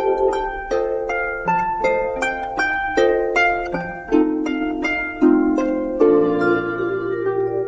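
Background music: a light melody of plucked notes, about three a second, over held lower chords.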